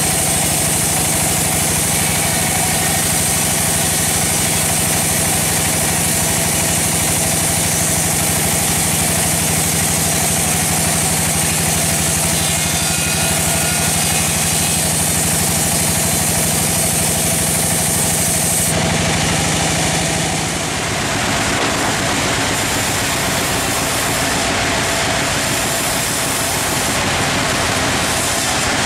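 Large band sawmill running as its blade cuts along a log: a steady motor hum with a high whine. About two-thirds of the way through, the high whine stops and the hum fades, leaving a rougher, hissier machine noise.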